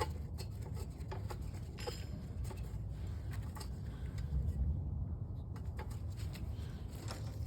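Scattered light metallic clicks and taps of bolts being threaded by hand into a snowblower engine's housing, over a steady low hum.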